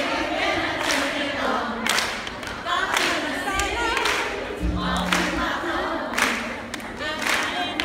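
A crowd singing together, with group hand-clapping on the beat about once a second.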